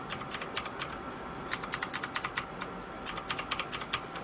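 A mechanical keyboard's A key, fitted with a thin PBT keycap, is typed in three quick runs of rapid keystrokes with short pauses between. The clicks sound lighter because the keycap is thinner.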